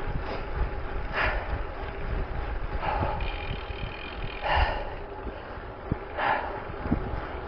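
A cyclist breathing hard while riding, a noisy breath about every one and a half seconds, four in all, over low wind rumble on the microphone.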